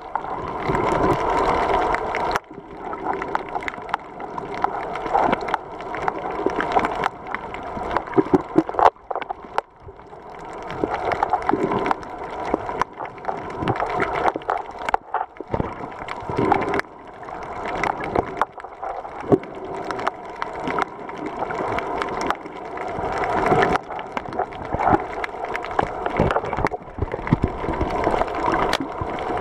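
Water heard from a camera held underwater: a continuous sloshing, gurgling wash with many sharp clicks and crackles, swelling and fading every few seconds.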